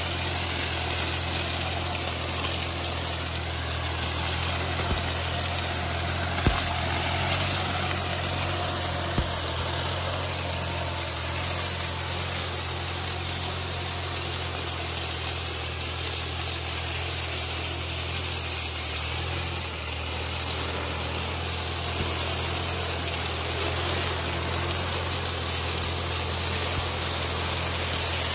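Kubota B2420 compact tractor's three-cylinder diesel running steadily under load, driving a rotary sugarcane-leaf mulcher that shreds dry cane trash with a constant hiss. A few sharp knocks come through in the first ten seconds.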